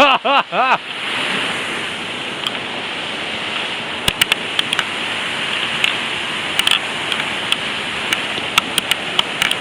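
Waterfall rushing steadily, with a short vocal exclamation in the first second and a few scattered sharp clicks later.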